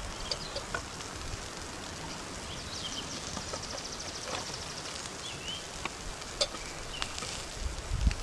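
Campfire hissing steadily with scattered crackles and pops, and small birds chirping now and then, including a rapid high trill about three seconds in.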